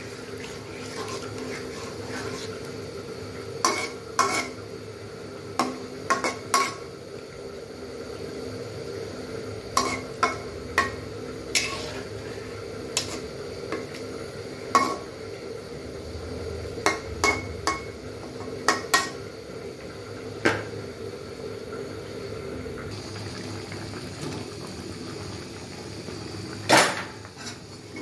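Metal spatula clinking and scraping against a metal kadai while stirring a simmering fish curry: a scattered series of sharp clinks, the loudest near the end, over a steady hum.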